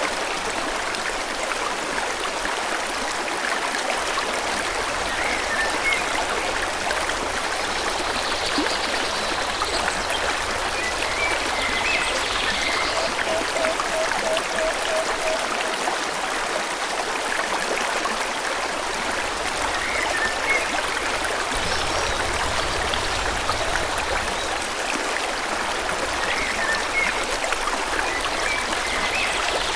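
A forest stream flowing steadily, with a bird chirping now and then. About halfway through there is a short, quick run of low repeated notes.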